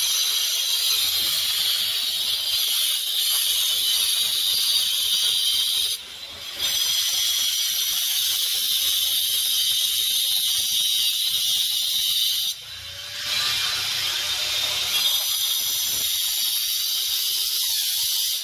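Handheld power cutter cutting into the floor along the marked outline of a floor-spring recess: a steady, high-pitched grinding in three long passes, with short pauses about six and about twelve and a half seconds in.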